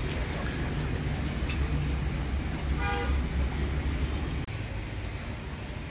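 A steady low rumble with a light hiss, and a single short tooting tone, like a horn, about three seconds in.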